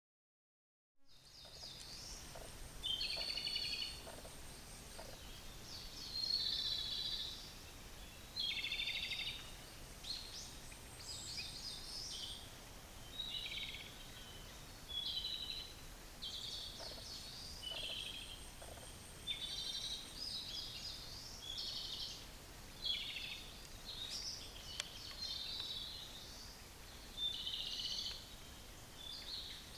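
Japanese robins singing, more than one bird: short loud phrases of rapid trilling notes, one about every two seconds, starting about a second in.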